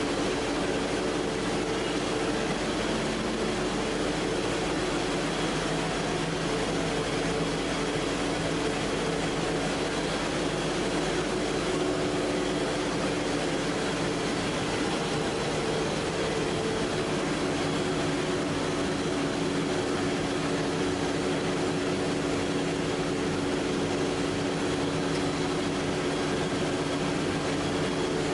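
Strapping extrusion line running: a steady, unchanging machine hum and whir from the roller stands and their drive motors.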